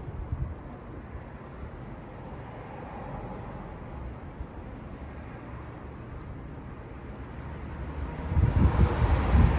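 Wind buffeting the microphone as an uneven low rumble, swelling into a strong gust near the end.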